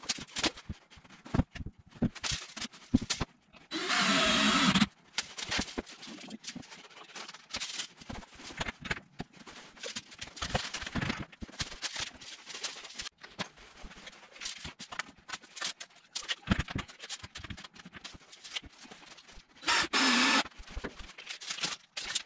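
Knocks and clatter of wooden timber frame parts being handled and set in place, with a cordless drill running twice to drive screws: once for about a second a few seconds in, and again briefly near the end.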